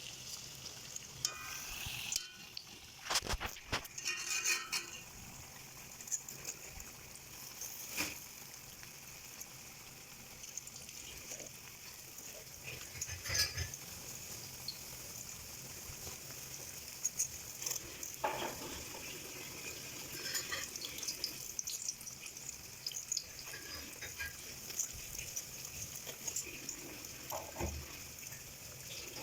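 Flattened glutinous rice cakes frying in hot oil in a pan, with a steady sizzle. A utensil clicks and knocks against the pan every few seconds.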